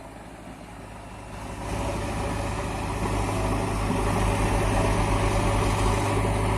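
A truck engine idling with a steady low hum and fast even firing pulses, growing louder about two seconds in.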